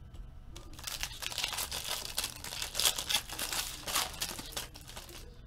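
Foil trading-card pack wrapper being torn open and crinkled by hand: a dense crackling that starts about a second in and stops shortly before the end.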